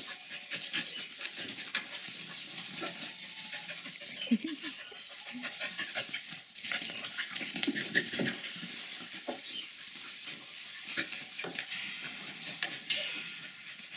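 Border collie puppies playing and wrestling with their mother, giving short puppy vocal sounds amid steady scuffling and rustling in straw.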